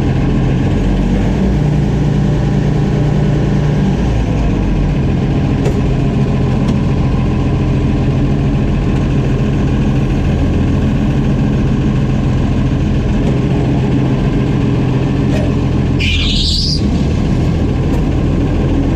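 Oliver 7300 combine running steadily with its engine drone. About three-quarters of the way through there is a brief high rising squeal.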